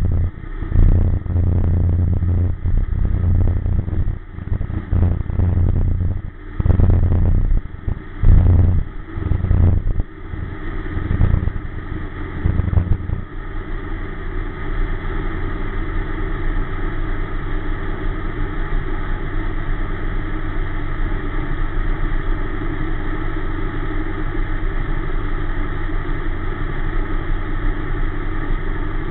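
Dirt-track sportsman race car's V8 engine heard from inside the cockpit, blipped in short, uneven throttle bursts for about the first thirteen seconds, then settling into a steady idle while the car sits stopped.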